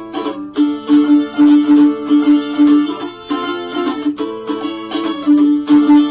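Mandolin strumming chords in a steady rhythm, its paired strings ringing between strokes.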